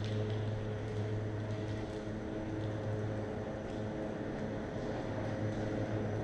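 Steady low machinery hum, such as ventilation fans or plant running in a tunnel construction site, a constant drone with an even stack of overtones and no change in pitch. A few faint ticks sound over it.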